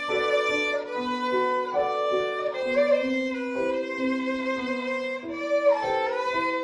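Violin playing a slow melody of sustained bowed notes, with a falling slide between notes near the end.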